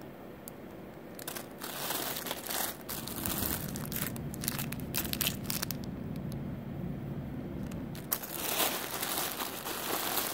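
Clear plastic bags of packaged jewelry crinkling as they are handled and rummaged through in a box, in irregular bursts. A busy stretch starts about a second in, there is a lull around six seconds, and more crinkling comes from about eight seconds.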